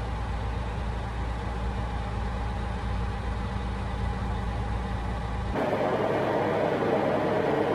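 Freightliner truck's diesel engine running with a steady low drone, heard inside the cab. About five and a half seconds in, the sound changes abruptly to a louder, broader noise of the cab on the road.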